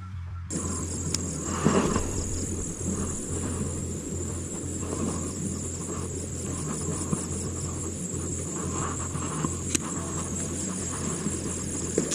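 Insects buzzing in a steady, high-pitched chorus, over a steady low rumble.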